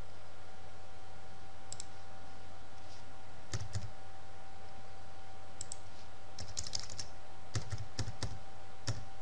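Computer keyboard keystrokes and mouse clicks as a number is typed into a software form: scattered single clicks, then a quick run of several keystrokes in the second half, over a steady low electrical hum.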